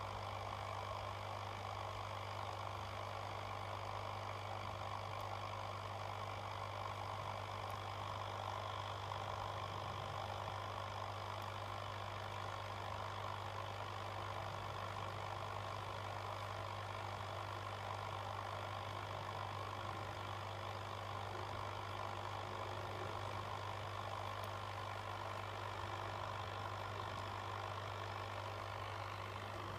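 A steady mechanical hum with a strong constant low drone, unchanging throughout, like a small motor or pump running.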